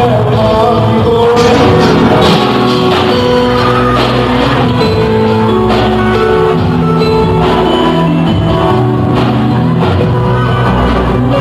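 Live band playing amplified music in a large hall: drum kit, bass guitar and keyboard, with a man singing into a microphone.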